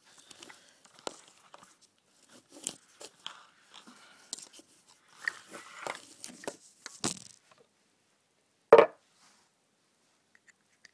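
Scattered clicks and scrapes of a Zippo lighter being handled as someone tries to pull its insert out of the metal case, with one loud knock about nine seconds in. The insert is stuck and won't come up.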